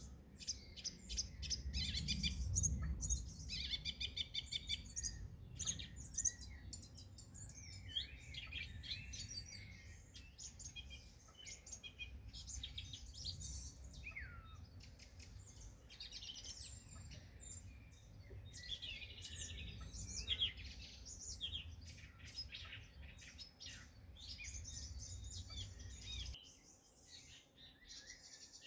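Several songbirds singing at once, with overlapping chirps, fast trills and rapid runs of repeated notes. A low rumble runs underneath and stops abruptly near the end.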